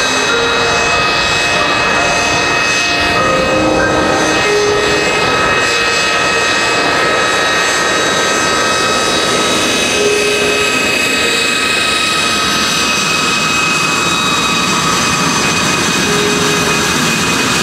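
Jet engine running steadily: a continuous rushing noise with several high, unwavering whining tones.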